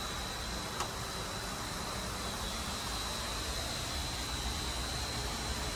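Water draining down through a shut-down cooling tower's fill and raining into the basin: a steady hiss of falling water, with a faint steady high tone over it. The pumps are off, and this drain-down is what raises the basin level to the overflow.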